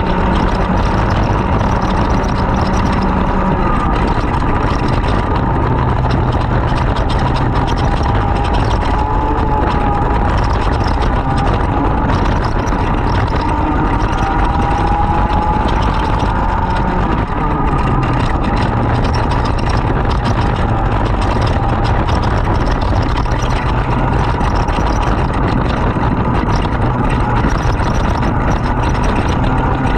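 Racing kart engine running hard and continuously, its pitch rising and falling gently as speed changes.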